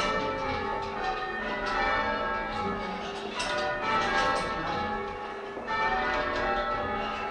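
Church tower bells being change-rung, swung full circle on ropes: an even, unbroken run of bell strokes one after another, each bell's ring overlapping the next, heard from the ringing chamber below the bells.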